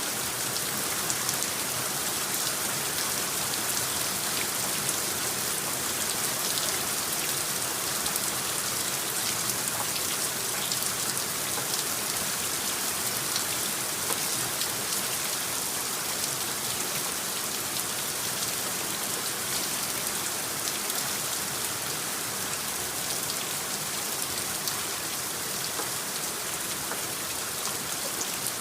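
Steady rain: an even hiss of rainfall dotted with the small ticks of single drops, holding constant throughout.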